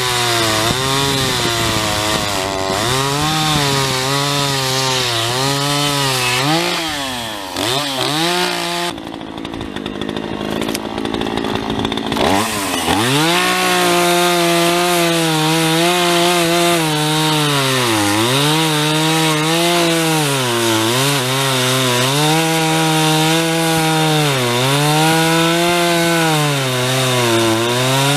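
Two-stroke chainsaw cutting a heavy piece of wood at full throttle, its pitch sagging and recovering every couple of seconds as the chain bites under load. About nine seconds in it drops back quieter for a few seconds, then revs up again and carries on cutting.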